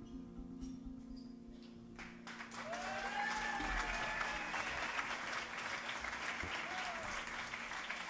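The band's final sustained chord rings out and fades, then the audience applauds from about two seconds in, with a shouted cheer among the clapping.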